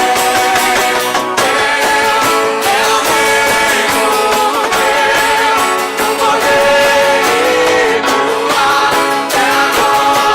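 Worship band music: guitar with a sung or played melody line over sustained chords, continuous throughout.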